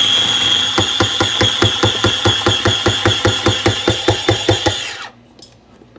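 A high-pitched electronic beep held steady for about five seconds, with sharp even clicking about five times a second under most of it.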